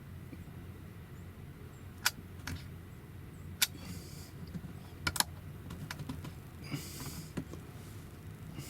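A handful of sharp, separate clicks and two short rustles over a steady low background rumble.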